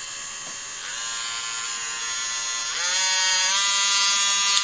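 Handheld electric nail drill (a variable-speed rotary tool, 3,000 to 20,000 RPM) running with a steady motor whine, switched up in speed twice, about a second in and near three seconds in, each step raising the pitch and loudness.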